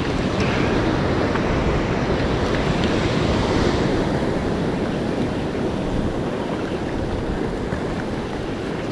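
Sea surf washing over a rocky shoreline, a steady rush, with wind rumbling on the microphone.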